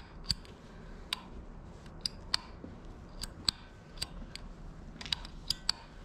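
Old metal wall light switch being worked by hand, giving a run of sharp, irregular clicks, about a dozen.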